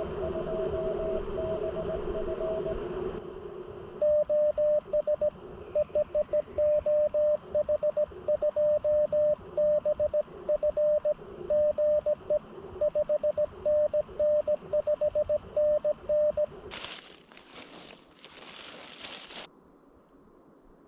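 Morse code (CW) from a ham radio transceiver. For the first three seconds a weaker signal beeps through hiss and band noise, typical of a station being received. From about four seconds a loud, clean tone keys Morse for about twelve seconds with silence between the elements, typical of the operator's own sending heard as sidetone. A short scratchy noise follows near the end.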